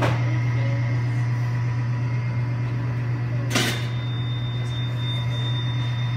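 A steady low machine hum, with two sharp knocks: one at the very start and another a little past halfway.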